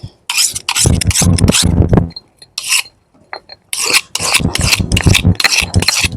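Knife being sharpened the traditional way, its blade scraped quickly back and forth in rapid rasping strokes. The strokes come in two runs with a pause of about a second and a half between them.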